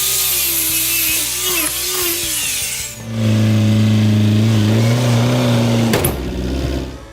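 A power tool: a loud hissing, wavering cutting sound, then a steady motor hum for about three seconds that stops with a sharp click, after which things go quieter.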